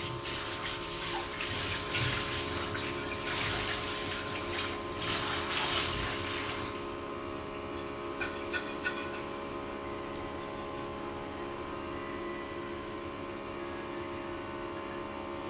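Water running from a tap, shut off abruptly about seven seconds in. A faint steady hum remains, with a few light clicks soon after.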